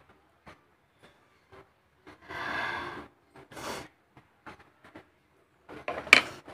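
A woman sniffing and snorting through a streaming nose after the sting of green chilli, with breathy sniffs in the middle and a short, sharp burst near the end, the loudest sound.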